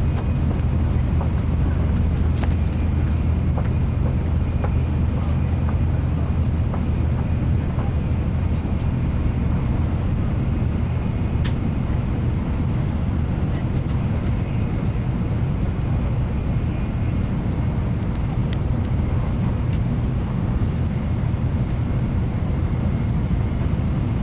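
Nozomi Shinkansen passenger cabin at speed: a steady low rumble of the running train with a faint high whine over it and a few small clicks.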